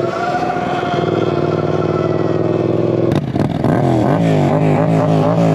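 Yamaha FZ-07's parallel-twin engine running steadily, then revving up and down in quick throttle blips over the last two seconds. A sharp knock comes about three seconds in.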